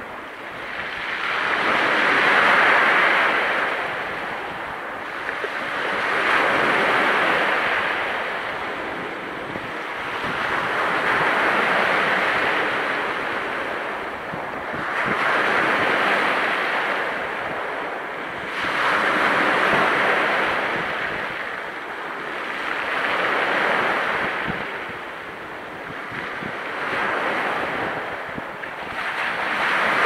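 Small waves breaking one after another on a pebble beach, each rushing surge swelling and fading about every four seconds. The pebbles rattle and tumble as the water runs up and drags back over them.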